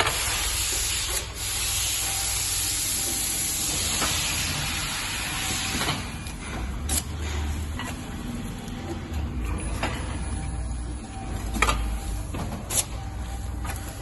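Machinery noise: a loud hiss, like escaping air or spray, for about the first six seconds. Then a low rumble with a few sharp knocks.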